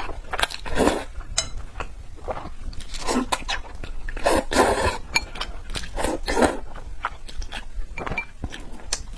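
Close-miked eating sounds of someone chewing braised pork belly: wet chewing and smacking in uneven bursts every second or two, with small clicks in between.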